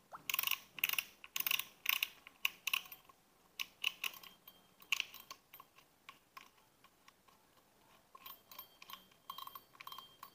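Front drag knob of an Exory BG-5050 spinning reel being turned and unscrewed by hand: a run of irregular clicks, dense for the first few seconds, sparse in the middle and thicker again near the end.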